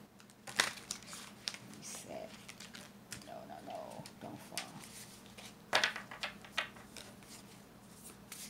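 Playing cards being handled and shuffled: a run of sharp card snaps and flicks, the loudest about half a second in and again just before six seconds in.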